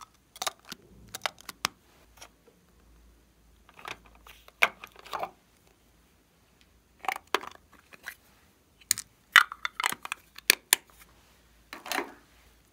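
Short clusters of sharp clicks and clacks from plastic and metal makeup cases being handled and opened, a gold lipstick tube and a plastic eyeshadow compact among them.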